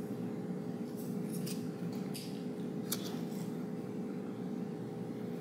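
A few small clicks and crackles of a foam adhesive dot being peeled off a cardstock mane piece and the paper being handled, over a steady low hum.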